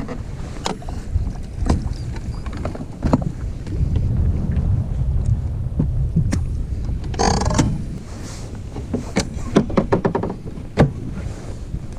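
A boat running, heard as a low rumble mixed with wind on the microphone, with scattered knocks and clicks and a short squawk about seven seconds in.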